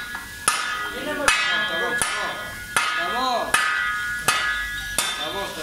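A steel shovel blade is banged down on a concrete floor seven times at an even beat, about one blow every three-quarters of a second. Each blow is a sharp clang that rings on briefly.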